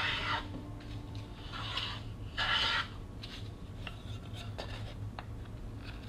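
A hand woodworking tool scraping on a wooden board: three short strokes in the first three seconds, then a few light clicks.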